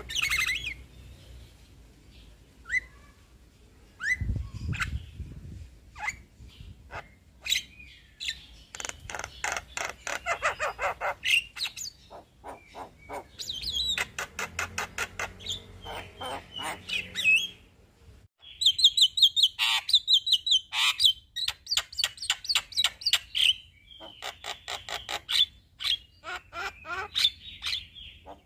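Male Javan myna singing in long rolling runs of rapid repeated harsh notes, mixed with squawky whistled calls, broken by short pauses.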